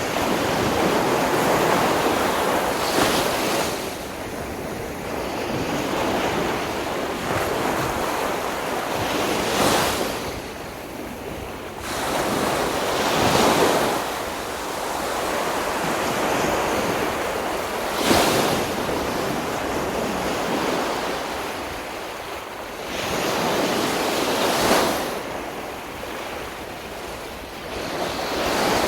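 Sea waves breaking on a beach: a continuous surf hiss that swells as each wave breaks, about every four to six seconds, and eases as it washes back.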